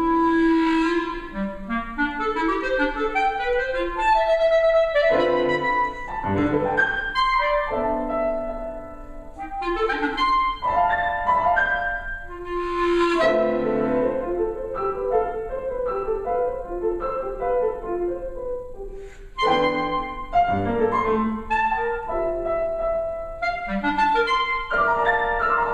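Clarinet and piano duo playing a contemporary classical piece, with quick runs and flourishes over piano chords.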